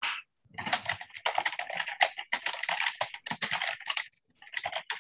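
Fast typing on a computer keyboard, a rapid run of key clicks coming over a video call, with a short break about four seconds in.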